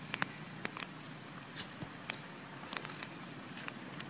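Dry fallen leaves crackling in short irregular clicks as macaques shift and step on the leaf litter.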